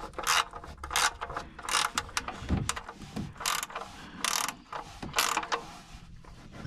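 Hand ratchet wrench clicking in short, irregular strokes, one or two bursts a second, tightening a fitting under the car during an oil change; the clicking stops shortly before the end.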